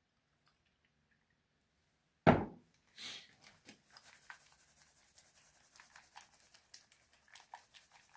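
A single loud thump about two seconds in, then a short rustle and scattered light clicks and scrapes of objects being handled.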